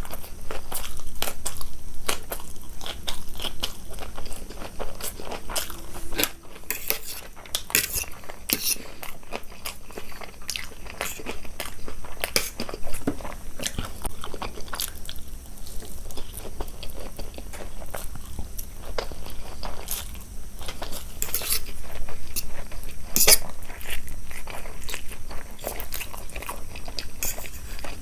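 Close-miked eating: a person biting, chewing and crunching food, with many sharp, irregular clicks.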